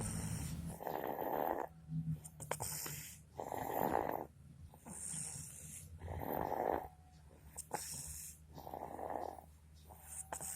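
A sleeping baby snoring: four rasping snores, each under a second and about two and a half seconds apart, with a soft hissing breath between them.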